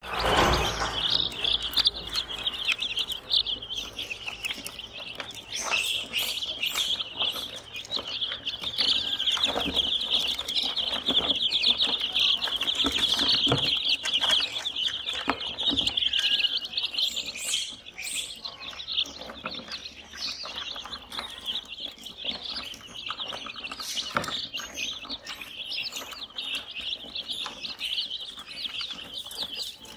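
A flock of baby chicks peeping continuously, many high chirps overlapping into a dense chorus, with a few short knocks.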